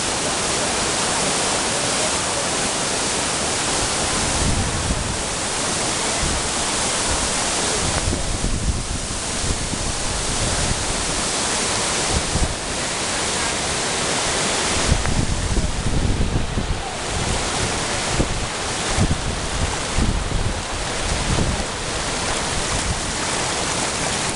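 Waterfall rushing down a rock face and over boulders, a dense steady roar of falling water. Low rumbles from wind on the microphone come and go through it.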